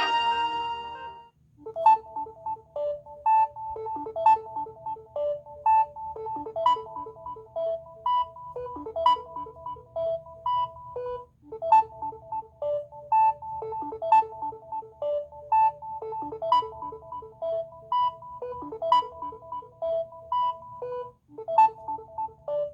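A Samsung Galaxy A40 ringtone playing: a melody of short notes that repeats the same phrase of about ten seconds, starting again near the end and cut off suddenly. In the first second the previous ringtone fades out.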